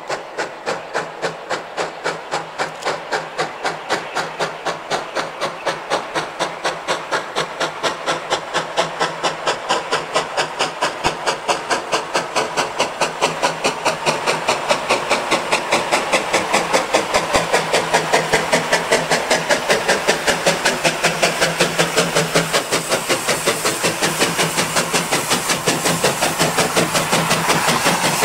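1861 Robert Stephenson & Co. steam locomotive chuffing, a fast even beat of exhaust puffs about three to four a second with steam hiss, growing louder as it approaches and draws level near the end.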